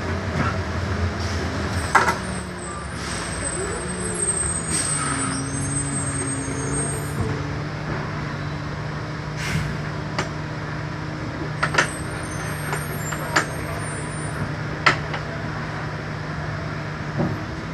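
Shuttle bus engine and drivetrain hum, heard from the driver's seat, settling to a steady idle about five seconds in as the bus slows and stops. Sharp clicks and knocks from the bus are scattered throughout.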